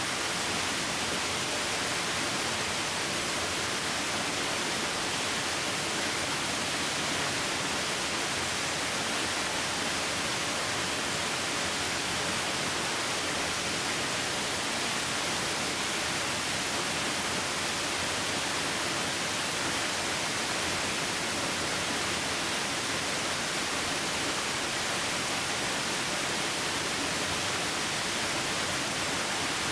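Waterfall: a steady, unbroken rush of falling water, with a hissing edge and little low rumble.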